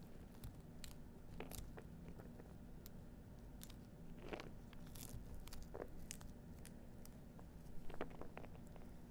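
Pomegranate being pulled apart by hand: faint, scattered crackles and snaps of the rind and pith tearing as the seeds are worked loose. A cluster of louder crackles comes about eight seconds in.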